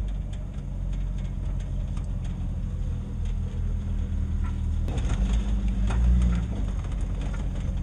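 Jeep engine running at low speed, heard from inside the cabin, with scattered light rattles and clicks from the body over rough ground. The engine grows louder for about a second around five to six seconds in.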